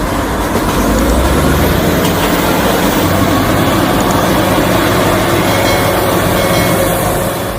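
Heavy diesel machinery engine running steadily and loudly with a deep rumble.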